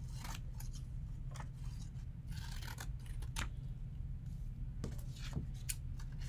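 Scissors cutting through paper in a series of irregular snips, over a steady low hum.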